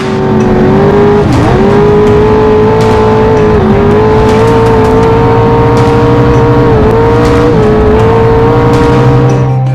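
Inboard engine of a V-drive boat running loud at high revs, its pitch holding steady with a few brief dips.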